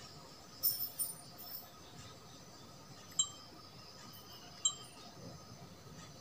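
Two short, high electronic beeps about a second and a half apart from a Sony HDR-CX405 Handycam as its controls are operated, with a few faint handling clicks before them over a quiet background.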